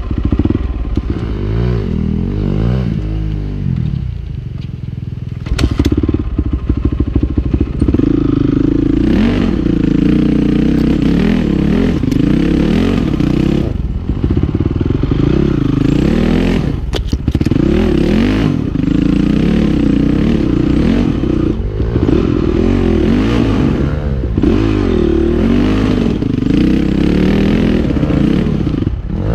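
Honda CRF450R's single-cylinder four-stroke engine revving up and down as the bike is picked up a steep rocky trail at low speed, with sharp knocks and clatter of the bike on the rocks. The engine drops low for a moment about four seconds in, then picks back up hard.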